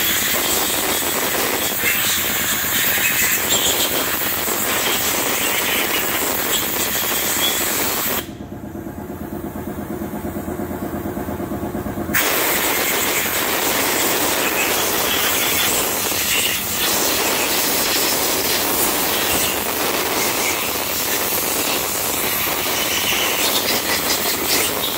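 Pressurised cleaning jet hissing steadily on the engine as it is cleaned. It cuts out about eight seconds in and starts again some four seconds later.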